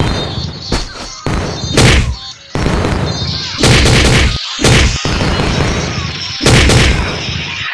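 Fight sound effects for an animated battle: an irregular series of loud explosion blasts and heavy impacts, one after another.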